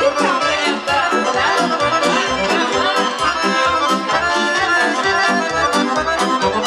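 Live wedding-band music: an accordion leads a Romanian folk dance tune for a hora, over an electronic organ with a steady bass beat.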